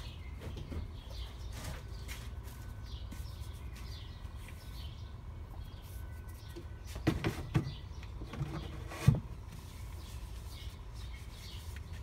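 Faint bird chirps over a low steady hum, broken by a short run of knocks and clatter about seven seconds in and one sharp knock about two seconds later.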